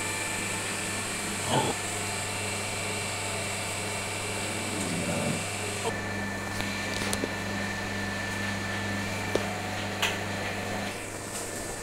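Steady electrical hum of an appliance motor, with a few short knocks and scrapes of bowls and a ladle being handled; the hum drops away near the end.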